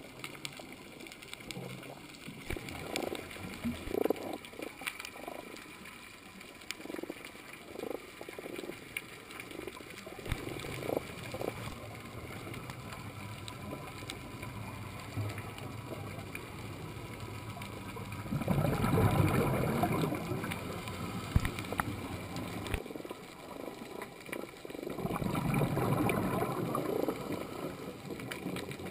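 Scuba diver breathing through a regulator, heard through an underwater camera housing: exhaled bubbles gurgle past in short bursts, then in two longer, louder bursts about two-thirds of the way in.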